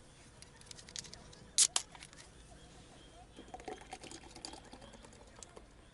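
A beer can being pulled open: two short, sharp hisses a second and a half in, with faint small crackles and ticks from a wood fire around it.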